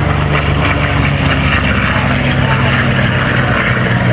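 Piston-engined propeller warbirds flying low overhead, a loud steady engine drone whose pitch drops a little partway through.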